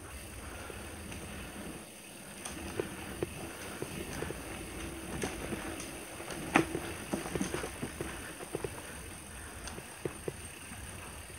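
Mountain bike ridden over a rough dirt trail: steady tyre and rolling noise with a run of sharp knocks and rattles as the bike goes over bumps, the loudest knock about six and a half seconds in.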